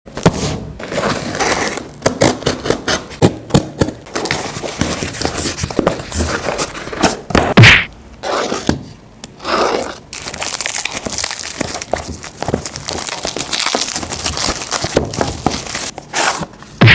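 Handling noise from unboxing a phone: packaging rustling, with frequent light knocks and taps. Two louder brief rushes come about seven and a half and nine and a half seconds in.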